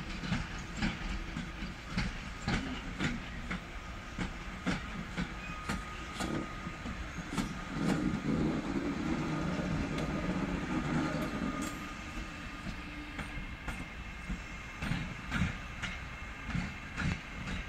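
Siemens Taurus electric locomotive rolling slowly through the station pointwork, its wheels clicking and knocking irregularly over rail joints and switches. A louder low hum from the locomotive swells about halfway through as it passes closest.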